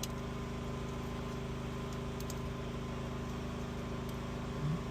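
Steady low machine hum, even and unchanging, with a brief faint sound near the end.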